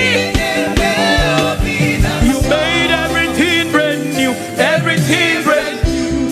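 Live gospel band music with a steady beat and bass, and singing lines in the upper range between sung lyrics.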